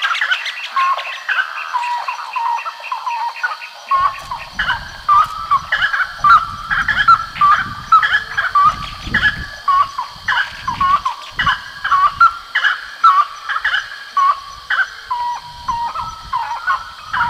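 A dense chorus of short animal calls, several a second, repeating throughout. A low rumble comes in about four seconds in.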